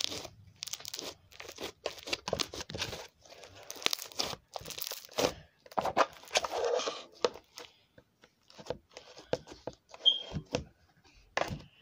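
Close, irregular crinkling and crackling of something being handled, in quick uneven bursts with a short lull about eight seconds in.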